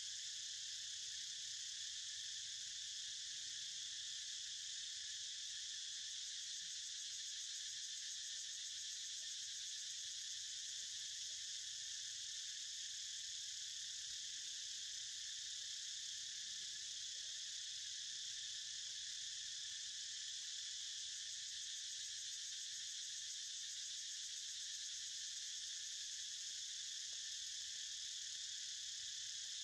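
Dense, steady, high-pitched insect chorus with no breaks or rhythm.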